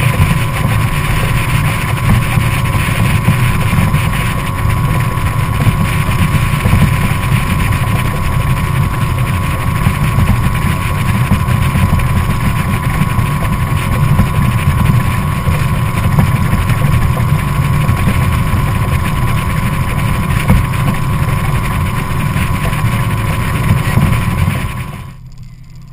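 Evinrude 50 hp E-TEC two-stroke outboard motor on a Quintrex 440 Hornet Trophy running steadily under way, heard from on board with a heavy low rumble. Near the end the sound drops away sharply.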